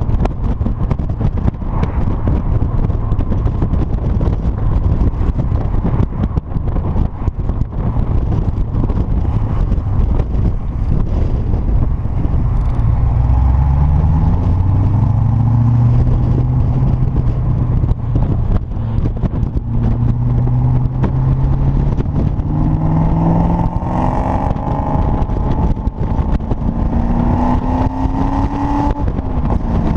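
Triumph TR7 V8's 3.9-litre Rover V8 through a single-bore exhaust, the car under way with heavy wind and road rush. From about halfway the engine note climbs in pitch several times as it accelerates, then drops near the end.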